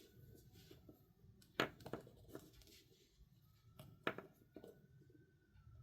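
Faint clicks and light taps from handling craft materials, with three sharper clicks, over quiet room tone. A faint thin tone slides up and then back down twice.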